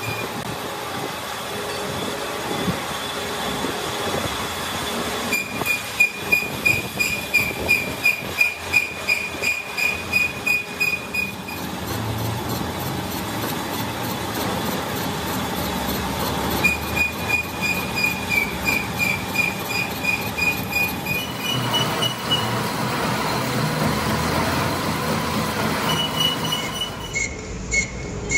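Metal lathe turning a large crankshaft while the tool cuts it: a steady machine noise, with two stretches of sharp metal-cutting squeals pulsing about three times a second, and a steadier high squeal near the end.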